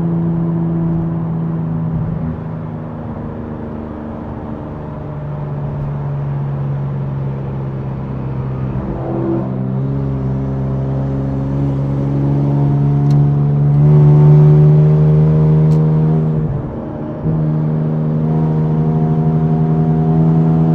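Infiniti Q60's tuned twin-turbo V6 running steadily under light load, heard from inside the cabin. The engine note climbs slowly, dips sharply about three-quarters of the way through, then holds steady again.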